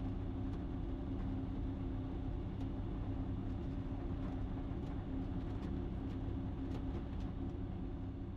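An Ikarus C42 light aircraft's engine and propeller running steadily at low power on the ground, heard from the cockpit.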